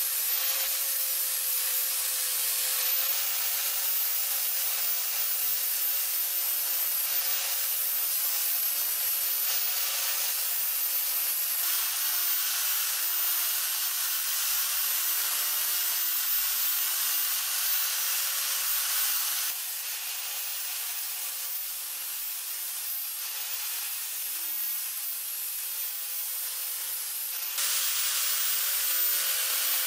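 Angle grinder with an abrasive disc grinding a steel axe head: a steady hiss of abrasive on metal over the motor's steady whine. It drops somewhat quieter about two-thirds of the way through, then comes back up near the end.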